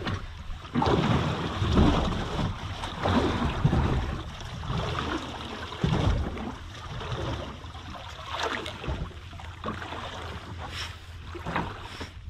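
Wind buffeting the microphone and water slapping against the hull of a small fishing boat at sea, uneven and gusty, with a few brief knocks.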